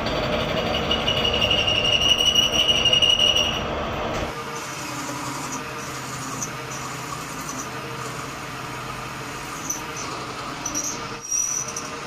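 Machinery running with a steady high-pitched metallic squeal that stops abruptly about four seconds in, leaving a quieter steady mechanical noise with a few light clicks.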